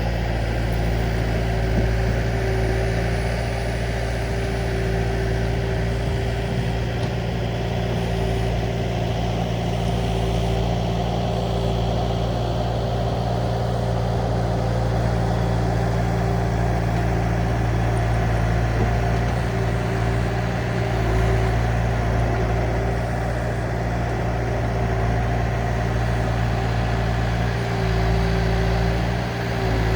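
Diesel engine of a compact piece of earthmoving equipment running steadily at a constant speed, with only small swells in level.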